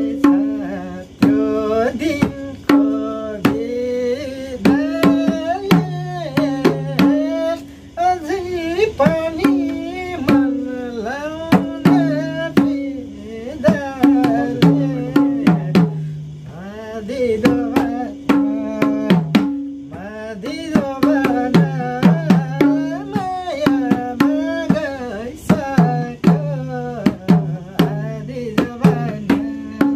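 A man singing a Nepali song while accompanying himself on a madal, a two-headed Nepali barrel hand drum. The drum is played in a steady, quick rhythm under the melody.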